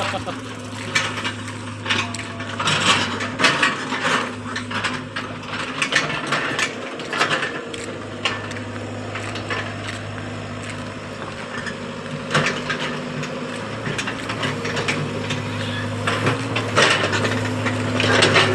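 Hitachi Zaxis excavator running with a steady engine hum, overlaid by repeated irregular clanks and knocks from the working machine.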